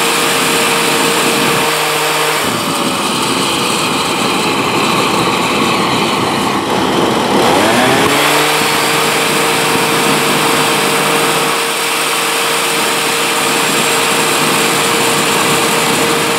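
Gas leaf blower engine running and forcing air into a homemade turbojet built from a turbocharger, with a loud steady rush of air. The engine note changes from about two seconds in, slides down near eight seconds, and then holds steady.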